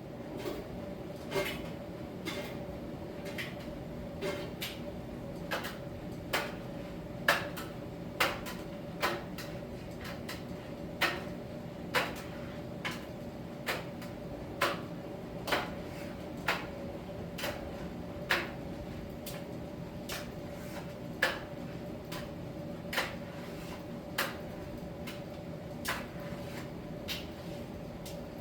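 Miele T1 heat-pump tumble dryer running in its drying phase. It gives a steady hum with a constant tone, and the tumbling load knocks and clicks against the drum irregularly, about once or twice a second.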